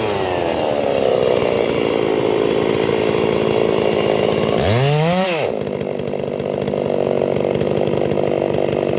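Holzfforma Stihl-clone two-stroke chainsaw with a 10-pin sprocket cutting wood, its engine pitch sagging under the load of the cut. About five seconds in the engine revs up briefly and falls back, then it keeps running with a duller sound.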